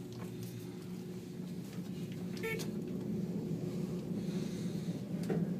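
Otis exterior glass elevator car running as it climbs, a steady low hum that grows louder about halfway through. There is a brief high-pitched squeak or chime about two and a half seconds in.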